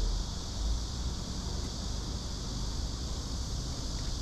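Steady outdoor ambience: a continuous high chirring of insects with wind rumbling on the microphone.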